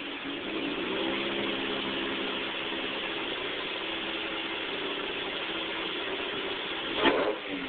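Supercharged 2.0-litre four-cylinder engine of a 2007 Chevrolet Cobalt SS idling steadily, with a brief loud burst about seven seconds in.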